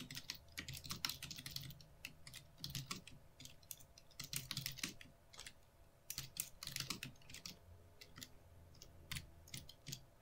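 Computer keyboard being typed on, faint, with quick irregular runs of keystrokes broken by short pauses.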